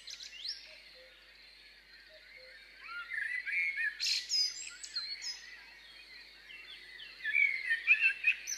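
Songbirds chirping and singing, many short rising and falling calls and trills, sparse for the first couple of seconds and then busier, loudest near the end.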